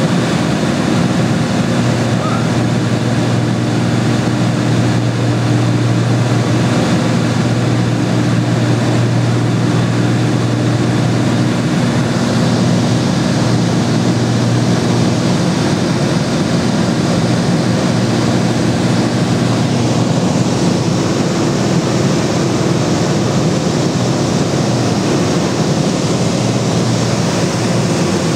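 Light aircraft's piston engine and propeller droning steadily with rushing airflow, heard inside the cabin; the engine tone eases a little about twelve seconds in.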